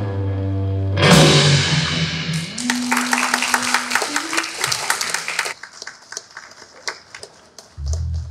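A rock band ending a song on electric guitar, bass and drums: a held low chord, a crash about a second in, then a quick flurry of drum hits under guitar notes that stops about five and a half seconds in. A few scattered taps follow, and a short low bass note near the end.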